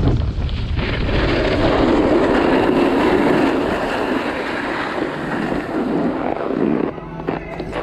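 Wind rushing over the microphone and skis scraping and hissing across packed snow during a downhill run, easing off near the end as the skier slows.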